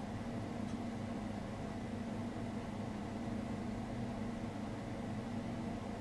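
A steady low mechanical hum with a droning tone that does not change.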